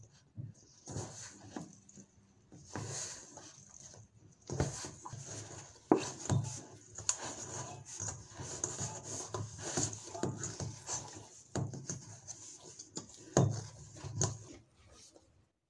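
Monkey bread dough being kneaded by hand in a stainless steel mixing bowl: irregular squishing and rubbing, with a few sharp knocks as the dough and bowl are pushed about.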